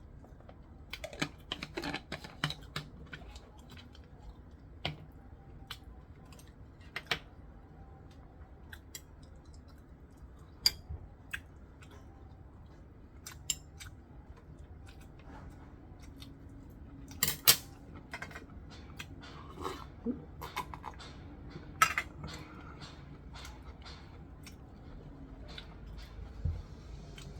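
Scattered clicks and taps of eating utensils against dishes, with quiet chewing, as a man eats; two sharper knocks come about 17 and 22 seconds in.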